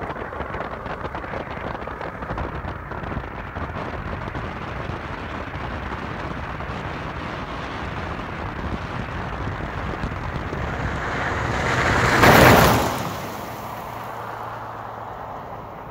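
Wind buffeting the microphone, then a vehicle speeds past close by about twelve seconds in. Its engine and tyre noise swells to a loud rush and quickly fades as it drives off.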